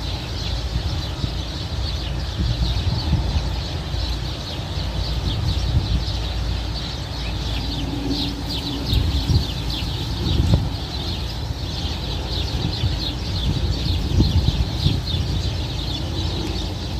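Many small birds chirping all at once, over strong wind buffeting the microphone as a heavy, gusty rumble.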